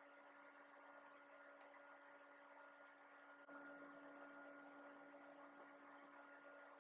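Near silence: a faint steady electrical hum of room tone, becoming slightly louder about halfway through.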